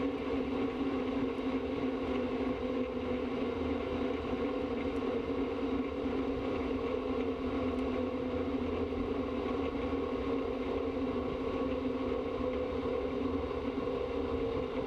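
An engine running at a steady idle with an even, unchanging pitch, heard through the drag car's onboard camera microphone.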